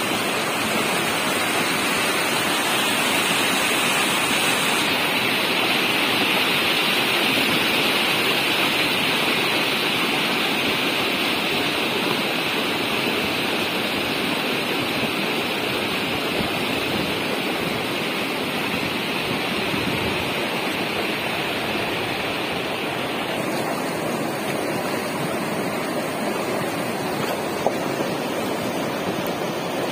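A muddy mountain river in flood rushing over a wide stony bed: a steady, loud rush of water.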